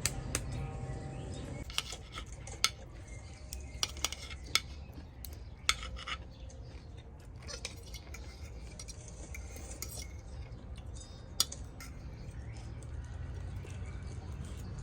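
Eating utensils clinking against plates and bowls during a meal: scattered sharp clinks, a dozen or so spread unevenly, over a low steady hum.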